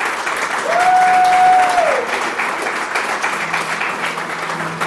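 Group of men applauding, with one long cheer held on one pitch about a second in. A low held note comes in near the end.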